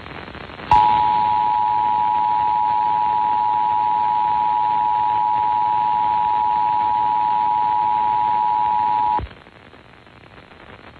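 Emergency Alert System attention signal: the steady two-tone 853 and 960 Hz alert tone, announcing a Required Monthly Test, heard over AM radio hiss. It starts about a second in and cuts off sharply after about eight and a half seconds, leaving only static.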